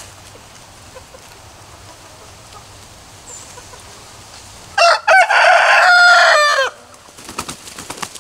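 An asil rooster crowing once, about five seconds in: a few short notes running into one long held call that ends with a falling pitch after nearly two seconds.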